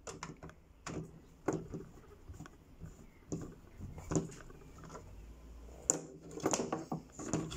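Irregular clicks, taps and scrapes of a hand screwdriver driving small screws into a gun, with a couple of louder knocks about 4 and 6 seconds in.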